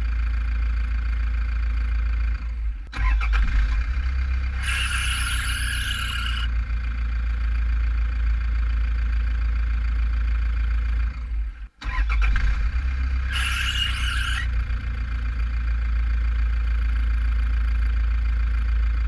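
Toyota 1KD 3.0-litre four-cylinder turbo-diesel running, with the accessory drive belt squealing twice, each squeal high-pitched and lasting one to two seconds, about nine seconds apart. The squeal comes and goes despite a new belt and pulleys, which the owner takes for a weak tensioner spring letting the belt slip.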